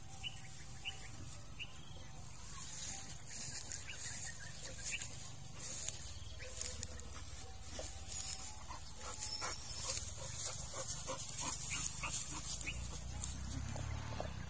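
A bully-type dog sniffing with its nose down in long dry grass: quick, irregular sniffs mixed with rustling grass stems as it moves.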